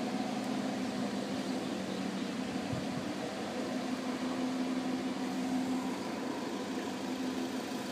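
A boat's engine idling: a steady, low, even drone.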